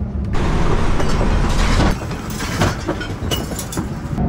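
Loud rolling road rumble and rattling inside a caravan towed at speed, with short clatters of loose fittings and contents shaking.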